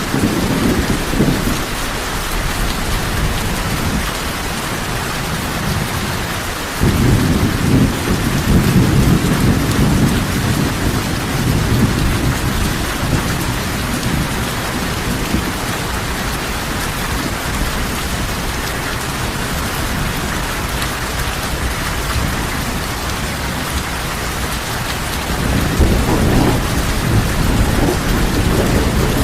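Heavy rain falling steadily, with low rolls of thunder: a rumble starts suddenly about seven seconds in and rolls on for several seconds, and another swells up near the end.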